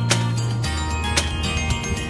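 Background music: held bass notes that change pitch about two-thirds of a second in, with sharp percussive hits on top.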